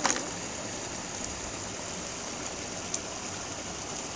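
Small stream running steadily, a continuous rushing of water. Two short clicks stand out, one right at the start and one about three seconds in.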